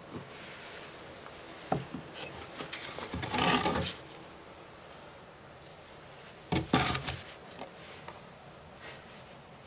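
Small objects being handled on wooden shelves and a wooden tabletop: a sharp knock, then about a second of scraping and rubbing as a shell is set back on the shelf, then another knock and scrape as something is picked up.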